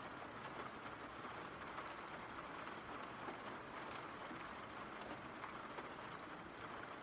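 Faint, steady rain: an even hiss of rainfall with light, scattered drop ticks.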